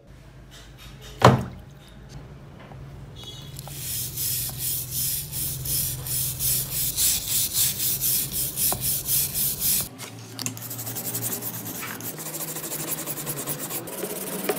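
Steel wire brush scrubbing a rusty claw hammer head in quick back-and-forth strokes, about three a second, to scour off rust loosened by a vinegar soak. About a second in there is one sharp knock, the loudest sound. Near the end the scrubbing turns faster and quieter as the brush works the head under liquid.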